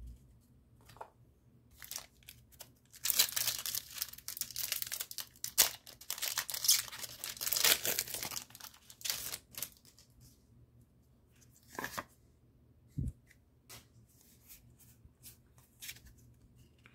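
Foil wrapper of a Pokémon TCG booster pack being torn open and crinkled in the hands, a dense crackling that starts a few seconds in and lasts about six seconds. It is followed by scattered light clicks and taps of the cards being handled.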